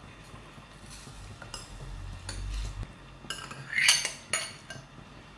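A steel spoon scrapes and clinks against a glass bowl as washed basmati rice is pushed out of it into a pot of boiling water. There are scattered light clinks, with the loudest scraping clatter about four seconds in.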